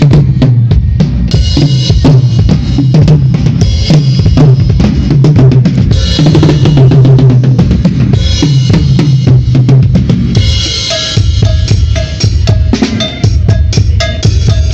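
Drum kit played continuously in a sound check: a busy stream of bass drum and snare hits, with a bright, hissing wash rising over them every few seconds.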